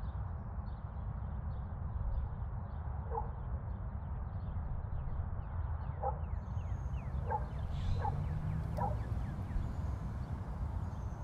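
Outdoor daytime ambience: a steady low rumble with birds calling over it, a quick run of faint high chirps in the first few seconds, then a few short calls and downward-sliding chirps in the second half.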